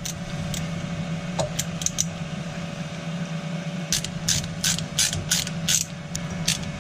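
Plastic Jabsco check valve being worked by hand onto a bilge pump outlet hose, giving sharp clicks and creaks. They are scattered at first, then come in a quick run of about seven near the end, over a steady low hum.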